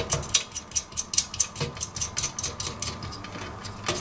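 Small metal nuts being threaded by hand onto the power transformer's mounting screws on a steel amplifier chassis: a run of light metallic clicks, about four a second, thinning out after a couple of seconds.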